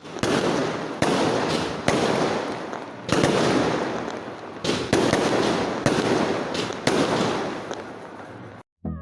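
Fireworks going off: about a dozen sharp bangs at irregular intervals, each trailing off in a fading rush of noise. The sound stops abruptly near the end.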